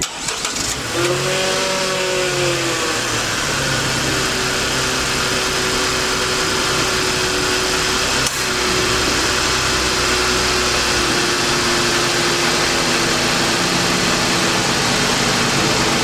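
A motor running steadily with a wide hiss. About a second in, its pitch rises and falls back once, then holds steady.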